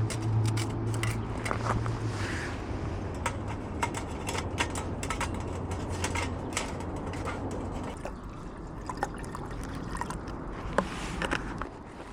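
Water pouring or trickling, with many small clicks and knocks throughout. A low hum under it dies away in the first couple of seconds.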